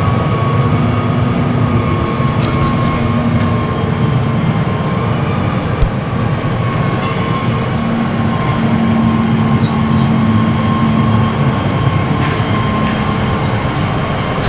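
Farm tractor engine running steadily, with a few sharp knocks and rattles from the machine.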